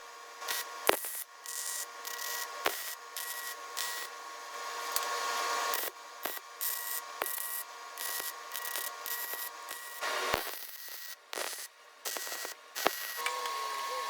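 MIG welder crackling as steel gussets are welded in, in short welds that stop and start several times, with a few sharp clicks between.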